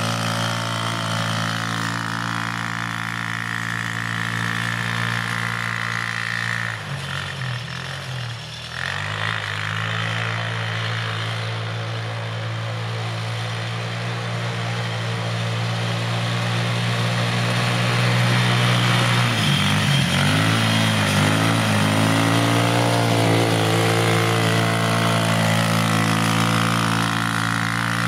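Engine of an Avenger 150 ATV running steadily. Its note drops and comes back up about seven seconds in, and again with some wavering about twenty seconds in.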